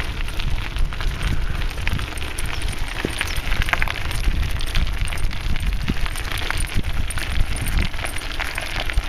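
Bicycle ridden along a tarmac path: a steady low rumble of wind and tyres, with frequent small clicks and rattles.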